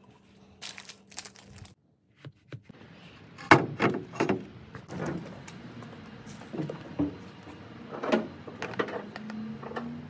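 Clunks and knocks of a dirt bike being handled in the bed of a pickup truck: about a dozen sharp knocks spread over several seconds, the loudest about three and a half seconds in, with a faint rising hum near the end.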